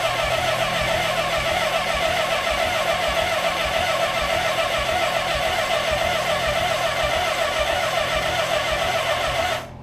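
Electric starter of a 1983 Suzuki GS850's air-cooled inline four cranking the engine steadily without it firing, choke full on; it cuts off abruptly near the end. The engine does not catch.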